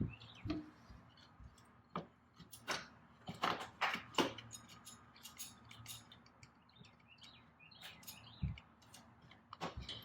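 Irregular light clicks and knocks of metal parts and hand tools as a turbo component is worked into place on the engine, with a duller thump near the end.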